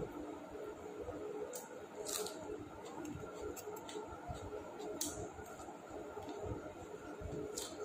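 A person eating biryani close to the microphone: soft chewing with a few sharp wet mouth clicks and smacks, about four of them.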